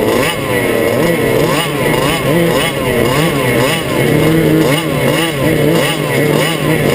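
Two-stroke racing kart engine heard onboard, its pitch swooping up and down over and over, a bit more than once a second, with a steady hiss of wind behind it.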